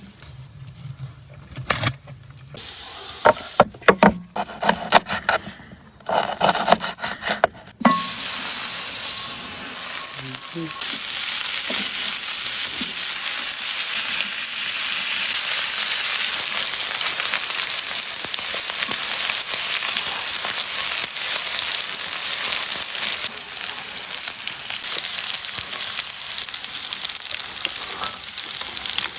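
A few seconds of scattered knocks and clatter, then, about eight seconds in, a steady loud sizzle starts suddenly: food frying in hot oil.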